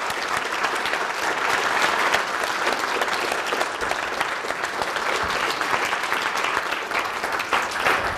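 Audience applauding: many people clapping together in a steady, sustained round of applause.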